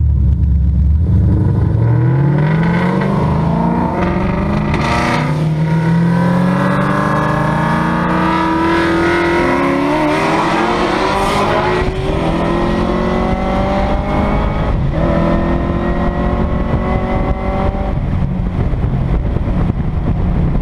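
Ford Shelby GT500's supercharged V8 under hard acceleration, rising in pitch through each gear and dropping back at several upshifts, heard from inside the open-top convertible with wind noise.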